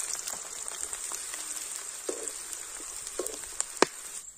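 Freshly added sliced onions and garlic cloves sizzling and crackling in hot oil in a wide metal kadai. The sizzle slowly eases, with a sharp pop near the end.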